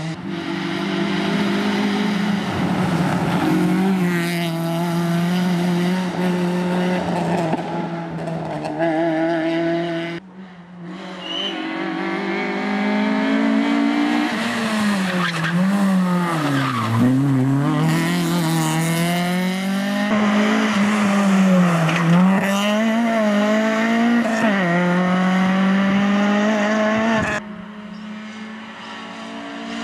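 Honda Civic VTi rally car driven hard at speed: its engine revs high and drops back again and again through gear changes and braking, the pitch climbing and falling several times in quick succession. The sound breaks off abruptly about ten seconds in and again near the end.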